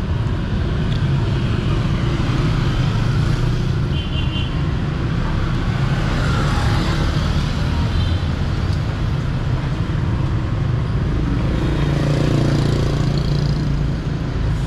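Steady road traffic noise from passing vehicles' engines, a continuous low hum with no single vehicle standing out.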